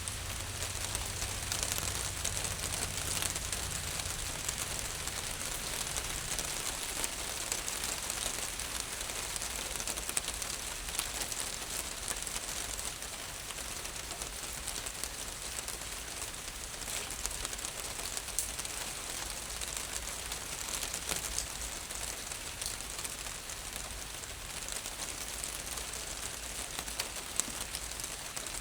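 Rain falling on a roof: a steady patter of many small drop ticks over an even hiss.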